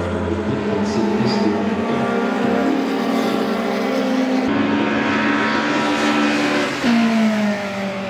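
Racing car engines running hard on the circuit. There is an abrupt change about halfway through, and near the end a passing car's engine note drops in pitch.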